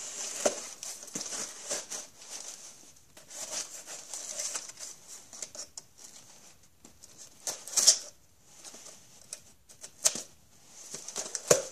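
Cardboard shipping box being unpacked by hand: irregular rustling and scraping of cardboard and packaging, with scattered light clicks and knocks, louder rustles about eight seconds in and near the end.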